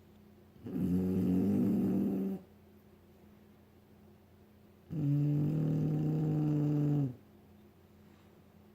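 Snoring during sleep: two long pitched snores about four seconds apart, each lasting about two seconds, the second a little lower in pitch.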